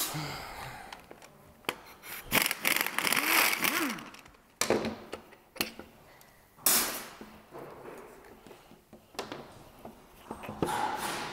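A cordless impact wrench runs in short bursts, undoing bolts on the engine, with sharp clicks and clanks of metal parts between the runs as the alternator is worked loose.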